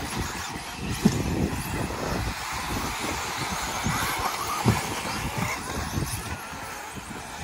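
A pack of electric stock-class 2WD RC buggies racing, their motors whining and rising and falling in pitch as they accelerate and brake. Irregular low thumps run underneath, with a sharp one about a second in and another near the five-second mark.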